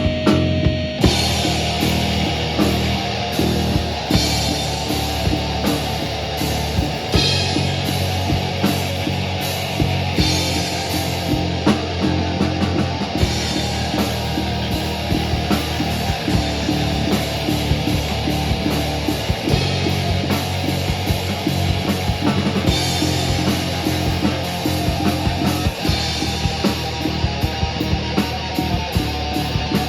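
Loud live rock band playing: distorted electric guitar with a drum kit pounding out a steady beat, the full band kicking in about a second in.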